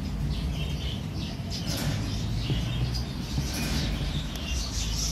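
Small birds chirping and twittering in quick, scattered notes, over a steady low rumble of shop background noise.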